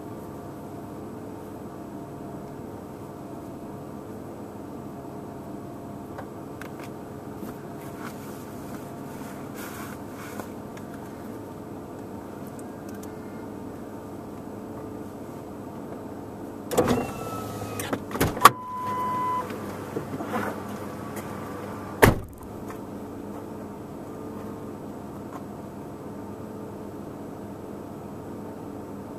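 Steady hum of a car idling, heard from inside the cabin. Over a few seconds past the middle come clicks and knocks with a short beep, ending in one sharp knock.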